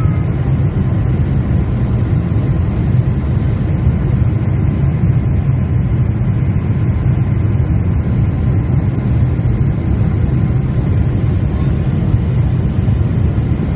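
Steady low rumble of a Boeing 747-8 with its GEnx engines running, heard from inside the cabin, even in level with no change in pitch.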